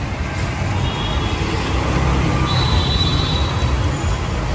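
Steady low rumble of road traffic from a busy street, with faint thin high tones a second or so in and again in the middle.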